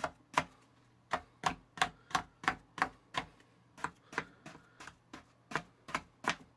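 Blue plastic sand cutter chopping down through a slab of Wham-O Squishy Sand (kinetic sand) and tapping the cutting board beneath, one crisp tap per cut at about three a second. There is a brief gap just after the first tap, and the taps are softer a little past the middle.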